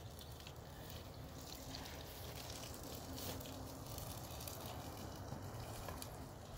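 Faint, steady bubbling and sizzling of cooking oil in a pan over a wood-ember fire, with a few faint crackles.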